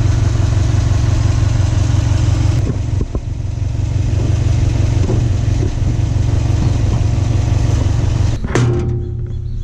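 A 2017 Subaru WRX STI's turbocharged flat-four engine running steadily with a deep, even throb. Near the end, music with sharp percussive hits comes in.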